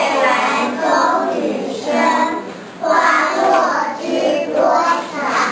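A small group of young children singing together, in phrases broken by a short pause about halfway through.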